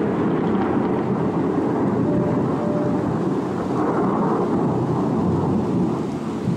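A steady, dense low rumble with no distinct events, loud throughout.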